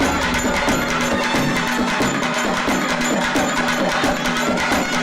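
South Indian temple festival music: fast, dense drumming with sharp strokes over a steady held tone.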